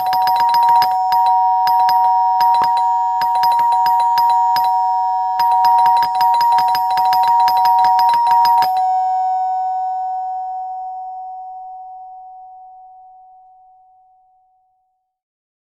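Doorbell ringing in several bursts of rapid strokes over about nine seconds, then its ring fades away slowly over about six seconds.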